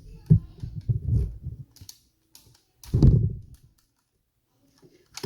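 LEGO plastic pieces clicking and knocking as small locks are pulled off a LEGO puzzle box: a few scattered clicks and handling thumps with short pauses between them.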